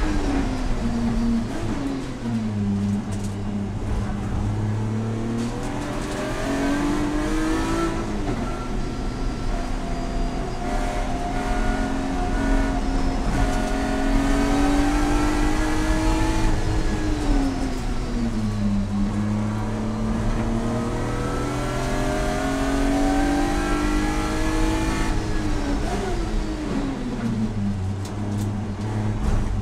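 Race car engine heard from inside the cabin on a track lap, its pitch climbing under full throttle and dropping sharply under braking, several times over. Road and tyre noise runs underneath.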